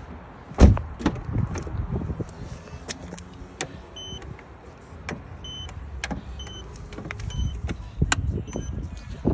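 Knocks, clicks and handling clatter, with a loud thump about half a second in. From about four seconds in comes a run of about eight short, high electronic beeps at irregular spacing.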